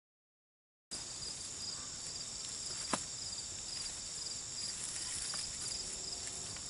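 Insects singing, a steady high buzz with repeated chirps, coming in after about a second of silence. One sharp snap sounds about three seconds in.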